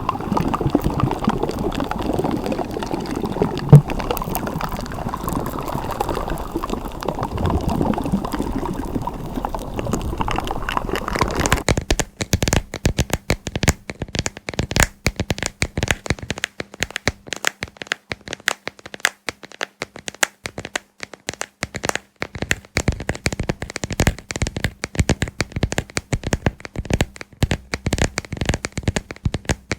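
Slime being squished and worked close to the microphone, a continuous wet squelching and crackling with one sharp pop about four seconds in. About twelve seconds in it switches abruptly to rapid light tapping and clicking on a moon-shaped lamp.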